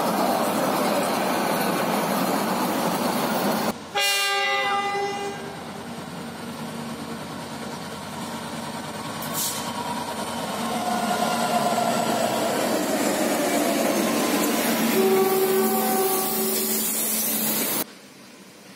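A green light-rail tram runs past on its track. After a cut, a diesel locomotive hauling passenger coaches approaches and sounds its multi-tone horn: a blast about four seconds in and another, longer one a few seconds before the end. The sound drops sharply just before the end.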